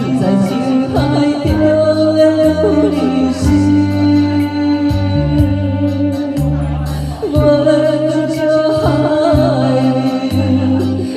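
Music from a song: a wavering melody over a bass line that steps between held notes, every few beats.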